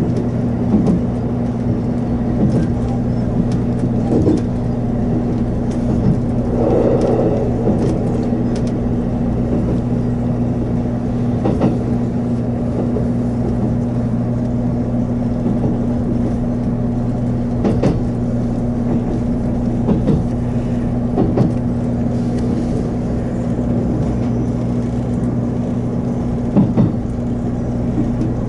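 JR Kyushu 783 series electric train running at speed, heard from inside the driver's cab: a steady hum under the running noise, with wheels knocking over rail joints every few seconds.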